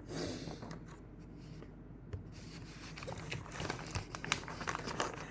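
Rustling and crinkling from a cross-stitch kit's packaging being handled, with a brief swish at the start and a run of small crackles and clicks in the second half.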